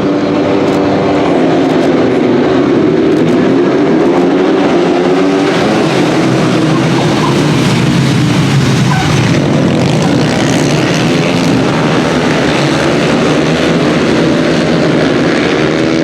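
Single-cylinder supermoto race motorcycles at racing speed, engines revving up and down through throttle and gear changes.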